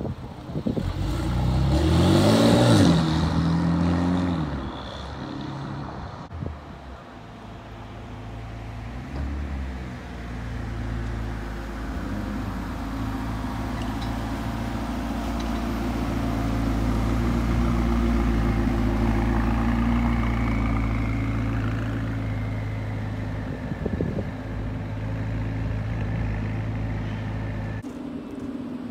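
A sports car accelerating hard, its engine note rising in pitch over the first few seconds. Then a McLaren 570S's twin-turbo V8 runs steadily at low revs, swelling and then easing as the car pulls away. The sound cuts off sharply near the end.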